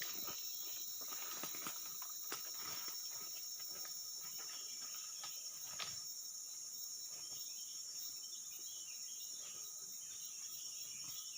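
Steady, high-pitched insect chorus of crickets or cicadas, with scattered light clicks and knocks, one sharper click about six seconds in.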